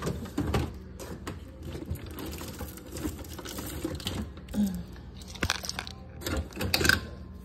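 Rummaging in an open refrigerator: scattered clicks, knocks and rustles of containers and bottles being moved, over a low steady hum.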